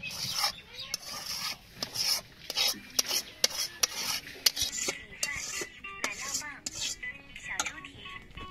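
Cooked greens being stirred and mashed with a spatula in a stainless steel bowl: repeated rough scraping and squelching strokes, about two to three a second, against the metal.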